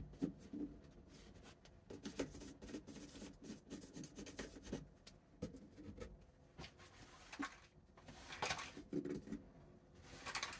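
Hands working a pegboard held against a wall and its 3D-printed plastic screws: faint, irregular clicks, taps and rubs of plastic and board, with two longer scrapes near the end.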